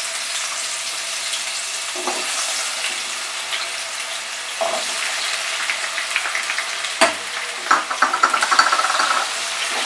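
Potato cubes frying in hot mustard oil in a kadai, a steady sizzle with a few brief louder crackles.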